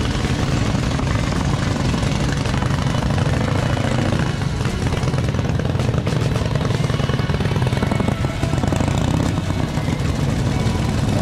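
Several vintage motorcycle engines running as the bikes ride slowly past one after another, a steady, loud, pulsing engine sound.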